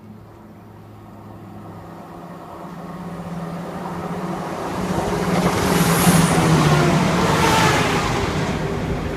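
A train approaching and passing the platform at speed. Its sound builds steadily and is loudest about six to eight seconds in, and its pitched hum drops slightly as it goes by.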